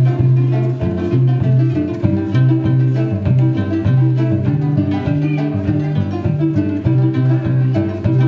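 Ensemble of Ugandan adungu arched harps being plucked together, a busy repeating melody over steady low bass notes.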